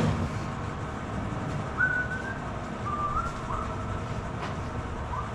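Steady low background noise with a few short, faint whistled notes, each stepping or sliding slightly in pitch, and a single light click about four and a half seconds in.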